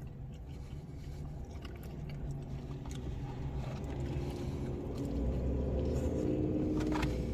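A motor vehicle's engine running with a steady low hum, growing louder in the second half.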